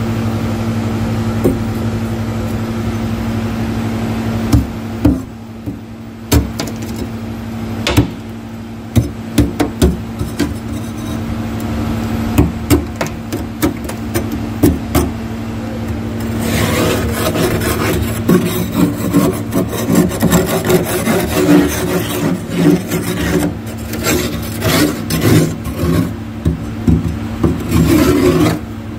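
Thick freezer frost being scraped off the freezer wall. The first half has separate sharp knocks and scrapes, and from about halfway on it turns to a dense run of rasping strokes. A steady low hum lies underneath.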